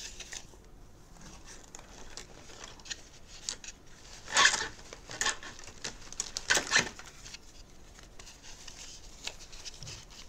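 Rustling with light clicks and knocks as a clawed gauntlet is pulled on over a 3D-printed plastic bracer. Two louder rustles stand out, about four and a half and nearly seven seconds in.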